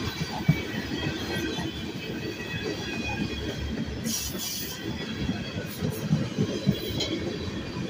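Freight train of hoppers, tank cars and boxcars rolling past close by: a steady rumble and clatter of steel wheels on the rails, with a few sharper clanks.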